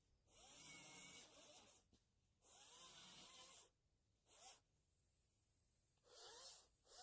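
Ryobi 40-volt battery chainsaw cutting down saplings in five faint bursts, two longer and three short, its motor pitch rising and falling as the trigger is squeezed and released.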